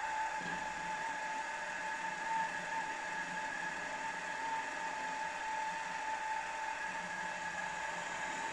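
Milling machine spindle running with a steady whine while a drill in its chuck is fed down by hand, drilling into a metal part.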